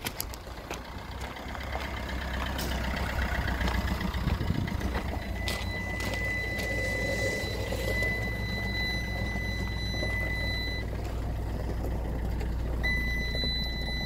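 Peugeot Bipper van running at idle with a low steady hum. A steady high-pitched electronic warning tone sounds for about five seconds, stops, and comes back near the end.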